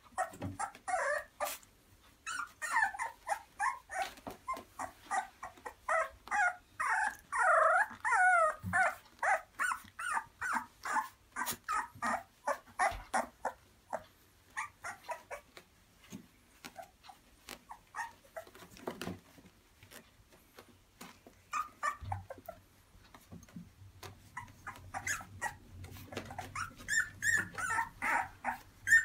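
Three-week-old Boxer puppies crying: many short, high, wavering calls in quick succession from several pups at once. They are busiest in the first nine seconds and again near the end, with sparser cries in between.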